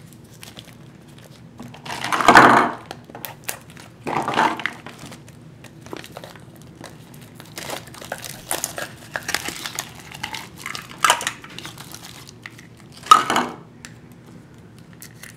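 Crinkling of a shiny plastic wrapper being pulled off a gumball-style toy capsule by hand. It comes in irregular bursts, the loudest about two seconds in and another near the end, with a few small clicks between.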